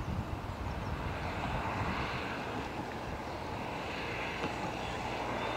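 Steady hissing drone of a distant passing vehicle's engine, swelling a little about two seconds in.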